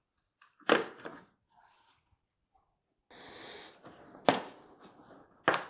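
Mechanics tool set case being popped open: a few sharp clicks and clacks from its latches and lid, with a brief scraping rustle in the middle.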